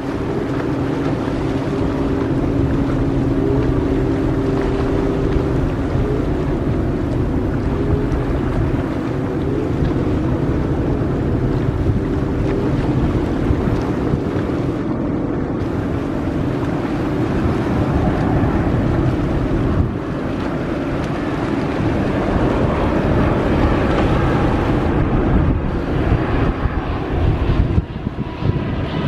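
Jet engines of a twin-engine widebody airliner on landing approach: a steady loud rumble with a low hum, growing a little louder as the aircraft passes overhead near the end. Wind buffets the microphone.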